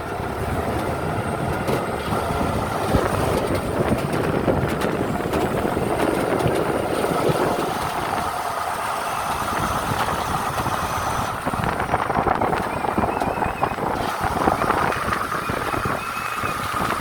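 A vehicle in motion, running steadily with continuous rumbling noise.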